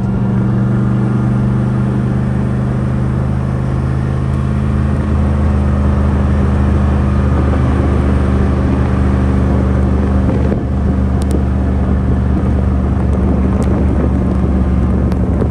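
2001 GMC Sierra 2500HD pickup running steadily while towing a travel trailer: a constant low engine drone with road noise.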